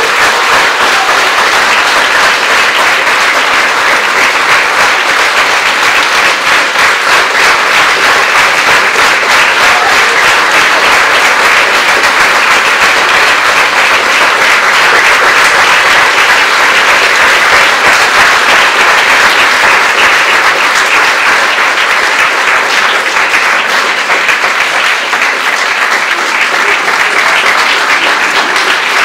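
Audience applauding: many hands clapping at once, steady and unbroken throughout.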